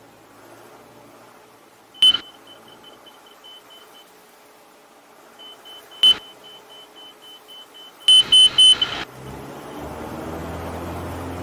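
Husky Aviat A1-B cockpit at idle power with the stick fully back near touchdown: the stall warning beeps in quick pulses, stopping and starting again. Two sharp knocks come about 2 and 6 seconds in, a loud clatter about 8 seconds in, and near the end the engine sound grows louder as power comes on.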